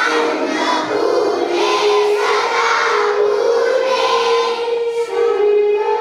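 A small group of young girls chanting a shloka (devotional verse) together, holding long, steady notes that slide gently between pitches.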